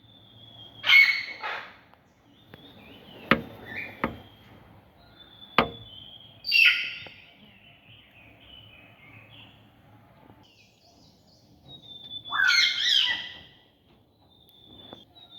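Macaw giving three loud, harsh squawks, the last one the longest. A few sharp clicks fall between the calls, and a thin high whistling note comes and goes.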